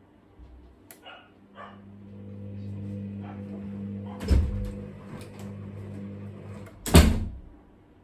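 Hoover DynamicNext washing machine's motor humming steadily as the drum turns for a few seconds during the wool cycle's gentle rinse, with two loud thumps about four and seven seconds in.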